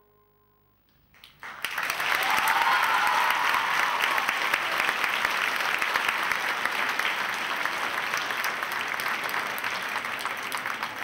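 The music's last note fades out, and after about a second an audience bursts into applause that goes on steadily, with a cheer a couple of seconds into it.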